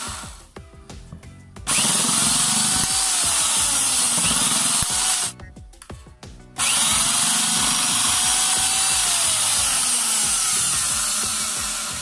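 Makita electric metal shear cutter running in two bursts of several seconds each. Each burst switches on abruptly and winds down when released.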